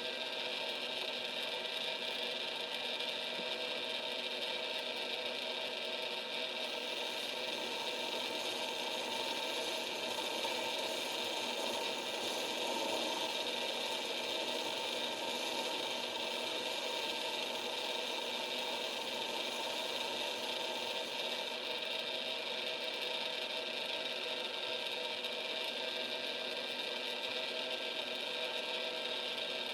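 Small lathe running steadily while a taper is turned on a shaft with the angled top slide: an even motor whine made of many fixed tones. A little extra hiss rides on it from about seven seconds in until about twenty-one.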